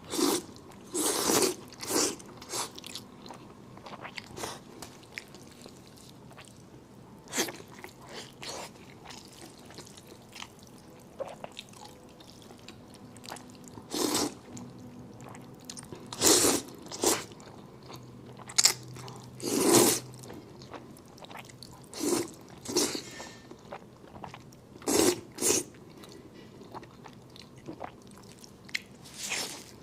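Close-miked eating of spicy fire noodles: irregular bursts of noodle slurping with chewing and biting sounds in between.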